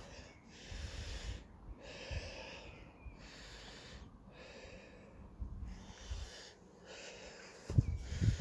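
A person breathing hard, with a breath roughly every second, and a few dull thumps near the end.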